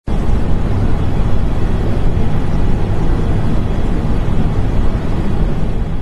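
Steady, loud rushing noise with a heavy low rumble and no tune or rhythm, starting abruptly at the very beginning.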